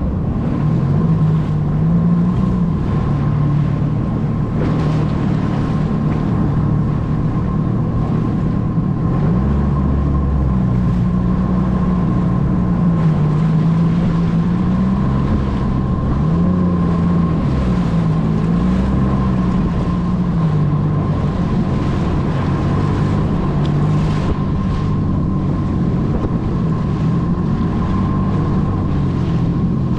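Jet ski engine running under way, its pitch rising and falling as the throttle changes, with a steady high whine alongside.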